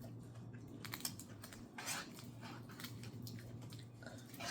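Close-up eating sounds: chewing sticky rice with small irregular wet clicks and mouth smacks, a few louder ones about a second in, two seconds in and near the end.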